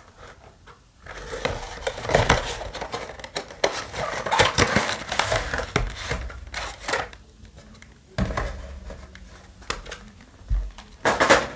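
A cardboard box being opened and a clear plastic tray of foil booster packs lifted out and handled: irregular scraping, rustling and crinkling in uneven spurts, with a few knocks, the loudest near the end.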